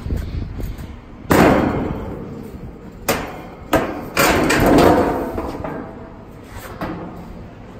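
Several loud knocks and clatters, each with a short ringing tail: one about a second in, two close together around three seconds, and the longest clatter just after four seconds, with a smaller knock near the end.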